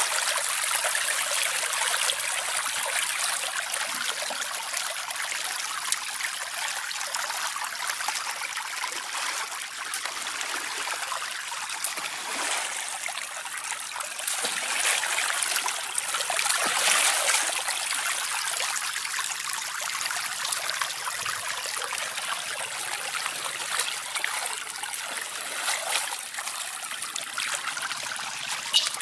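Shallow water flowing and trickling steadily in a running current.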